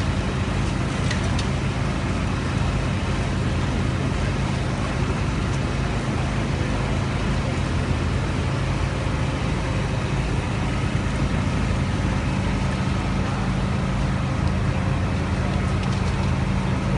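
Diesel engine of a hydraulic excavator running steadily, a constant low hum with a few faint clicks.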